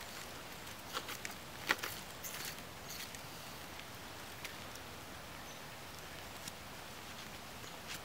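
Scattered short crackles and rustles of dry leaf litter being disturbed, clustered in the first three seconds and then sparse, over a steady outdoor hiss.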